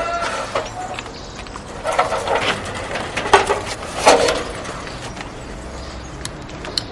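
A mailbox on a garden gate being handled and a card pulled out of it: a few rattling scrapes in the first half, then two short clicks near the end.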